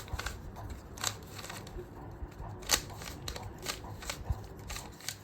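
Rubik's cube being handled, its plastic pieces giving a string of irregular sharp clicks. The loudest click comes nearly three seconds in.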